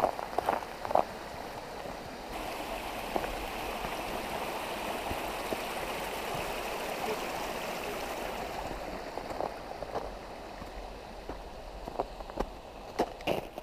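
Gray Wolf River rushing steadily below the trail; the rush grows louder suddenly about two seconds in and thins in the last few seconds. A few short crunches near the start and near the end.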